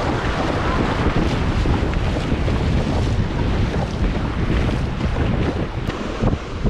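Strong wind buffeting the microphone, with the steady wash of choppy sea surf underneath.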